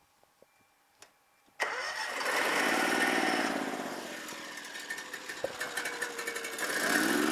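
Daishin 12.5 kVA inverter generator's Honda GX690 V-twin engine starting about a second and a half in, with a sudden onset. It then runs up in speed, eases back, and rises again near the end.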